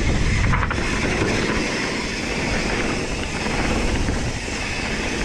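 Mountain bike rolling fast down a dirt singletrack: continuous noise of the tyres on dirt and the bike's moving parts.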